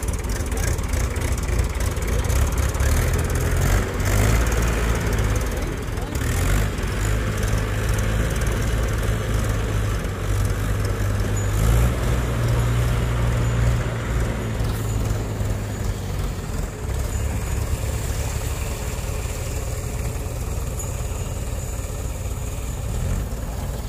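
Mahindra tractor's diesel engine running steadily under load as it tows a water-filled trolley out of a pond, with water pouring from the trolley.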